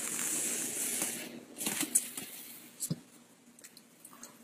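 Rustling, handling noise, heaviest in the first second and a half, then a few short clicks or taps and quieter rustling.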